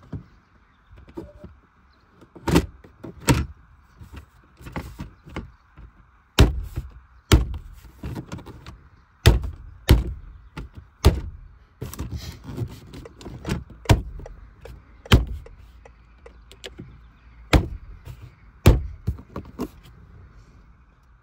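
Sharp knocks and thumps on a car door, a dozen or so at irregular intervals, with lighter taps between.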